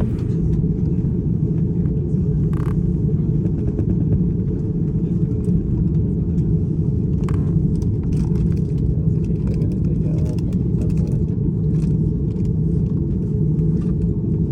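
Steady low rumble heard inside the cabin of an Airbus A330neo airliner, its engines and cabin air running at an even level, with a few faint clicks.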